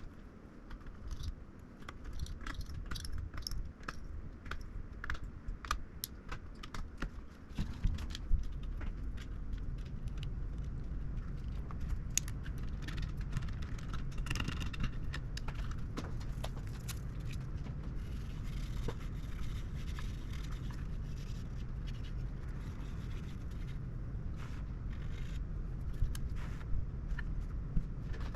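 Many small sharp clicks, taps and scrapes of hard parts being handled, thickest in the first half, over a low steady rumble that becomes stronger about eight seconds in.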